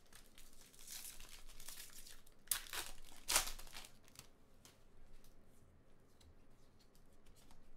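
A foil trading-card pack wrapper being torn open and crinkled, with a few sharp crackles near the middle, the loudest about three and a half seconds in. Afterwards, only faint light ticks.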